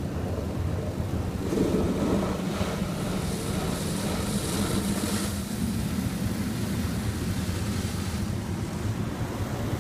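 Wesumat car wash's rotating soft brushes sweeping along the car's sides, heard muffled from inside the cabin as a steady hum with swishing and water spray. The swishing grows louder and hissier from about one and a half to five seconds in, as the brushes pass the windows.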